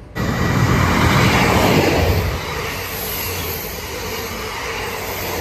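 South Western Railway diesel multiple unit, with what is taken for a Class 158 on the front, running through the station at speed without stopping. The wheel and engine rush starts abruptly and is loudest for the first two seconds as the front passes, then settles to a steady, lower rumble as the coaches go by.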